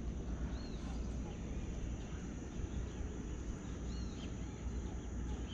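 Outdoor ambience: a steady low rumble of wind on the microphone with a constant high hiss, and two short bird chirps, one about half a second in and one around four seconds.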